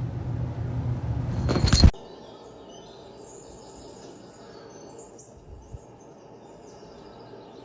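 A steady low hum builds into a sudden loud burst of noise that cuts off abruptly about two seconds in. Faint, short, high bird chirps follow over a quiet background.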